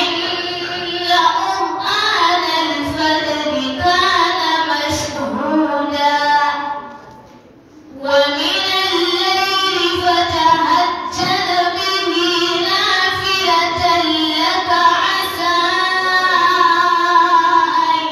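A girl reciting the Quran in melodic, drawn-out tajweed style into a microphone: two long phrases, with a pause for breath about seven seconds in.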